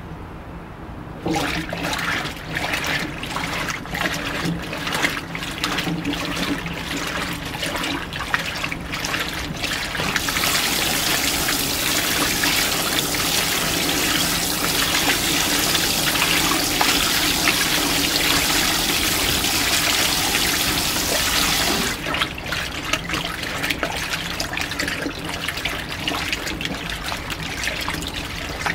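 Washing machine filling with water: water starts splashing into the drum about a second in, turns to a louder, steady hiss for about twelve seconds in the middle, then goes back to splashing.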